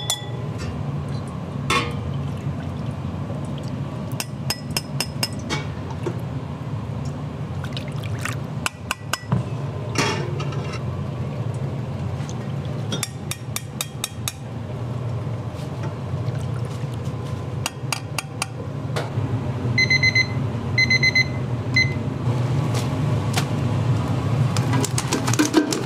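A metal ladle pouring liquid seasoning into ceramic ramen bowls and clinking against them, over a steady low kitchen hum. A few short electronic beeps sound about twenty seconds in.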